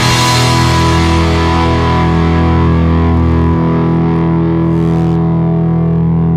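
Distorted electric guitar through a mid-1970s British valve amp head and a speaker-cabinet impulse response: a chord held and left to ring out, its lowest note dropping away about three and a half seconds in.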